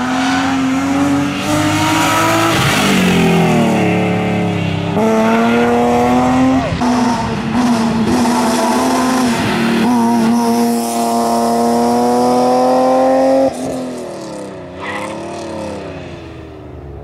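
BMW M3 E36 rally car's straight-six engine at full throttle, its pitch climbing, dropping at gear changes and climbing again. It is held high for several seconds, cuts off suddenly about 13 seconds in as the driver lifts, then fades away.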